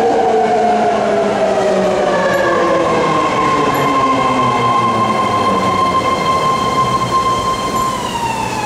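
Nine-car BART train pulling into the platform and slowing: a loud whine that falls steadily in pitch over a running rumble. From about three seconds in a steady high tone joins it, and near the end the tones drop lower as the train slows further.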